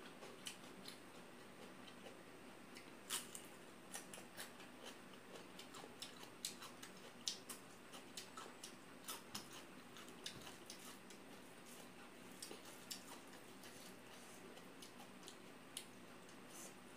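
Faint eating sounds of rice and curry eaten by hand: irregular small wet clicks and smacks from chewing and from fingers in the rice on a steel plate, over a faint steady hum.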